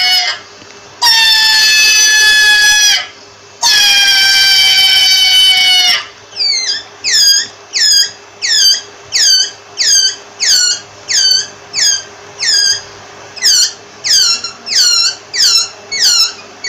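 Rabbit squealing: two long, loud, high squeals, each sagging slightly in pitch, then from about six seconds a quick run of short squeaks, each dropping in pitch, coming one to two a second.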